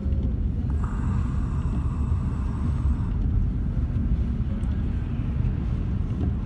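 Car driving in a snowstorm: steady low rumble of engine, tyres and wind, with a faint higher tone over it for about two seconds near the start.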